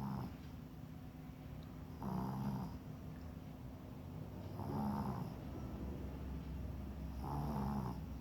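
A sleeping animal snoring in slow, even breaths, with three rasping snores about two and a half seconds apart.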